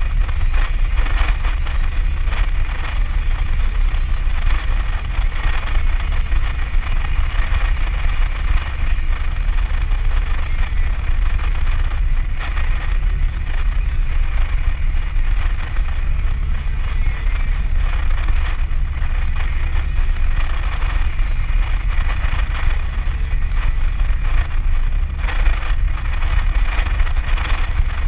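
Steady cabin noise of a Nissan Navara ute cruising on a sealed road, heard from inside the cab: a constant low rumble of engine and tyres with an even hiss of road and wind noise over it.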